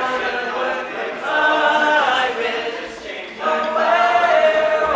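All-male a cappella group singing held chords in close harmony, no instruments. The sound dips about three seconds in, then swells into a loud sustained chord.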